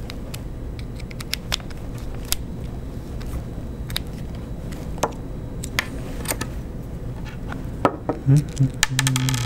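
Small plastic parts and a screwdriver clicking and tapping as a 30 mm cooling fan is screwed onto a 3D-printed fan shroud with plastite screws. Near the end the clicks come quicker, mixed with short low creaks.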